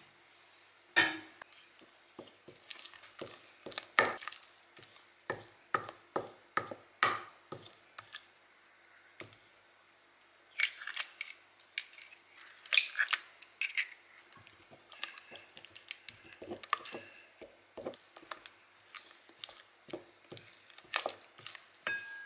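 Wooden spatula knocking and scraping against a glass mixing bowl as batter is stirred, in a run of quick taps. About halfway through comes a louder cluster as eggs are cracked into the bowl, then the stirring taps resume.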